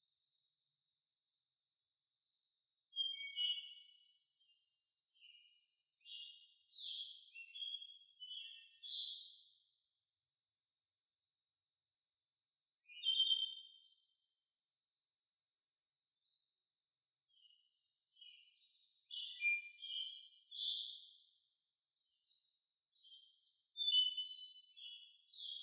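Steady, high-pitched pulsing trill of a cricket, with short chirps scattered through it, the loudest a few seconds in, near the middle and near the end.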